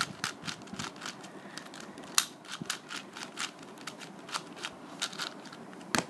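A plastic 4x4 Rubik's cube being turned quickly by hand: an irregular run of sharp clicks and clacks, several a second, as its layers snap round. The cube turns very smoothly.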